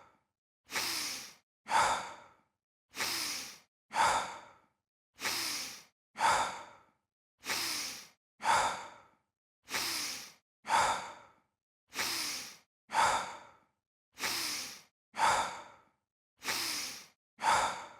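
Looped stock sound effect of heavy breathing: two breaths in quick succession, a longer one then a shorter one, repeating in the same pattern about every two seconds with silence between.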